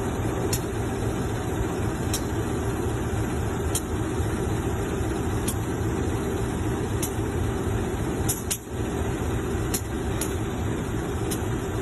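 Steady running noise of a motor vehicle, a low rumble of engine and road. Faint sharp ticks come every second or two.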